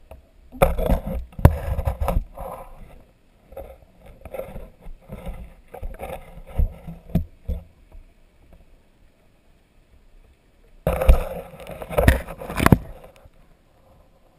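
Muffled knocks, clicks and rushing water noise picked up by an underwater camera housing as the rig is moved about. The noise comes in three irregular bursts, the last near the end as the camera reaches the silty bottom beside the sunken wreck.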